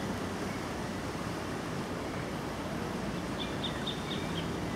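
Steady rushing noise of wind and the flooded river's fast-flowing water. About three and a half seconds in, a bird gives a quick run of high chirps.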